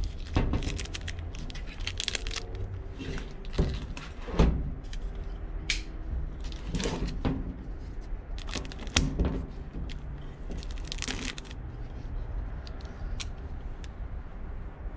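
Plastic wrapping crinkling and tearing as it is pulled off a new metal time-switch enclosure, with several sharp knocks from the box being handled.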